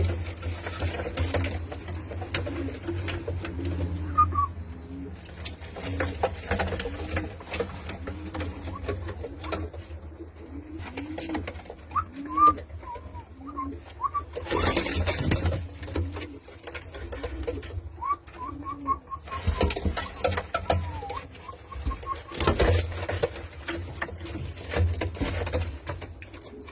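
Domestic fancy pigeons cooing over and over in short arched calls, with some higher chirps among them. A few louder bursts of noise come about halfway through and again near the end, over a steady low hum.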